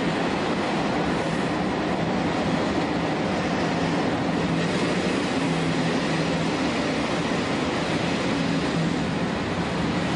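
Shin-Keisei 200 series electric train with nose-suspended traction motors running slowly, heard from the cab: a steady rumble of wheels on rail with a constant low hum.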